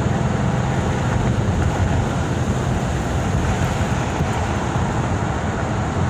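Ford Mustang GT's 5.0 V8 and tyres heard from inside the cabin while cruising: a steady low drone of engine and road noise.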